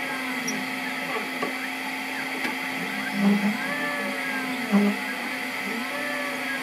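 CNC 3018 engraving machine's stepper motors whining in short rising and falling tones as they move the laser head and bed while engraving, over a steady hum. Two louder low pulses come about three and five seconds in.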